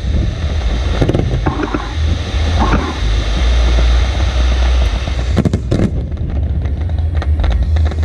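Fireworks going off: a steady deep rumble with many sharp cracks and crackles, coming thicker in the second half.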